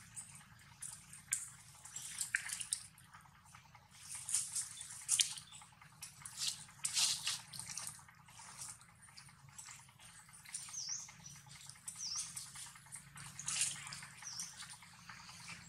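A macaque chewing soft, juicy fruit: irregular wet smacking and squelching mouth sounds. A few faint short high chirps come over it about two-thirds of the way through.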